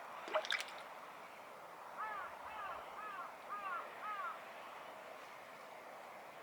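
A bird calling five times in a quick, even series, each call rising then falling in pitch, after a couple of sharp clicks about half a second in.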